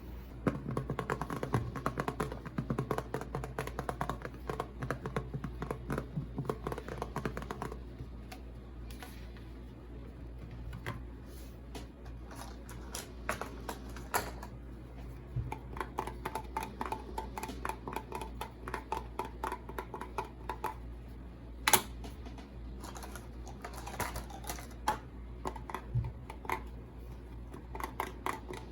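Rapid light clicking and tapping of small hard plastic items being handled. The clicks come in dense runs with sparser taps between them, and there is one sharper click about three quarters of the way through.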